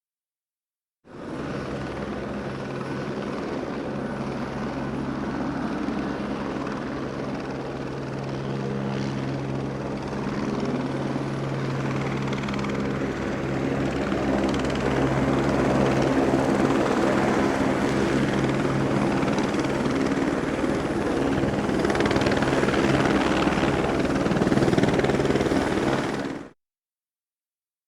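Helicopter running, its turbine and rotor making a steady sound with a fast, even low rotor beat. It starts about a second in, grows gradually louder, and cuts off abruptly near the end.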